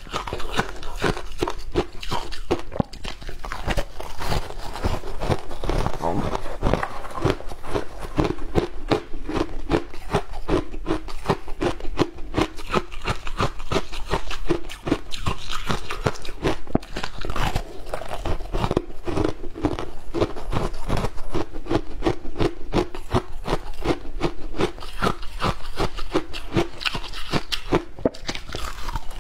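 Ice chunks being bitten and chewed, a dense, unbroken run of sharp crunches.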